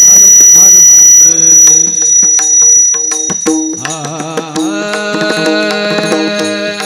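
Devotional kirtan music: tabla strokes over held melodic notes, an instrumental passage between sung lines of the abhang. It is loud, peaking in the first second or so.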